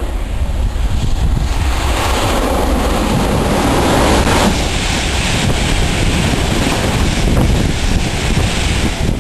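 Passenger train passing at speed under the bridge: a rushing noise builds about two seconds in, is loudest around four seconds in, and carries on as the coaches go by, over steady wind rumble on the microphone.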